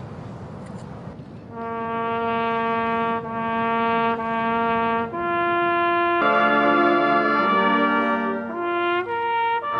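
Military brass band: a single horn holds three long notes on one pitch, then a higher note, and about six seconds in the rest of the brass band joins with held chords. The first second and a half is a low outdoor hush before the horn starts.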